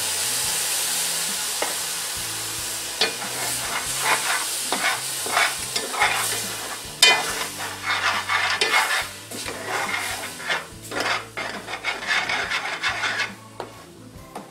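Hot roux and vegetables sizzling in a cast aluminum pot around a frozen block of shrimp stock, with a metal spoon stirring and scraping the pot bottom in many quick strokes. The sizzle and scraping fade a little before the end.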